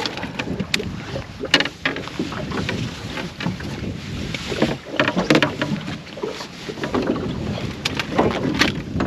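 Water slapping against a small boat's hull, with wind on the microphone and scattered sharp clicks and knocks from fishing rods and gear being handled in the boat.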